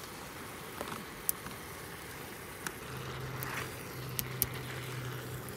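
Chopsticks clinking against a stainless steel pot several times while stirring pork and kimchi, over a steady hiss. A low hum comes in about three seconds in.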